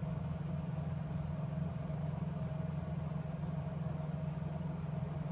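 Steady low mechanical hum with a faint higher tone held over it.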